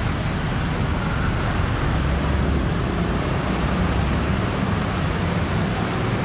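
Steady road traffic: trucks, cars and motorcycles passing on a busy road, a continuous low rumble of engines and tyres.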